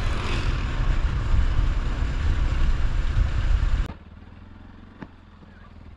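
Bajaj Rouser NS200 motorcycle running on the road, a dense low rumble heard from the rider's position. About four seconds in it cuts off suddenly to a much quieter stretch with a single faint click.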